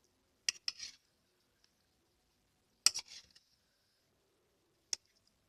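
Eating utensils clinking against a bowl in three short bursts of sharp clicks, about half a second, three seconds and five seconds in, while a bowl of seblak is eaten.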